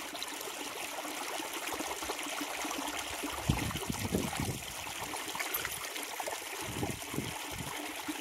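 Steady outdoor rushing noise with gusts of wind buffeting the microphone, strongest about three and a half to four and a half seconds in and again near seven seconds.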